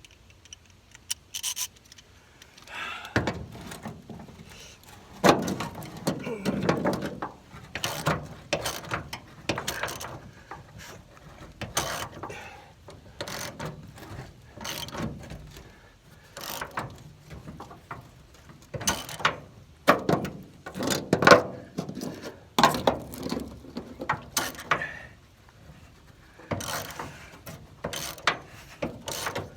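Hand ratchet clicking in short irregular strokes as a T55 Torx truck-bed bolt is turned, with pauses between strokes.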